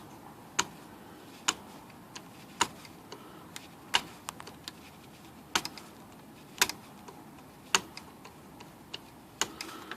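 An X-Acto knife shaving the plastic tip of a Smith Corona typewriter's ribbon-spool shaft, giving sharp, short clicks about once a second at uneven intervals.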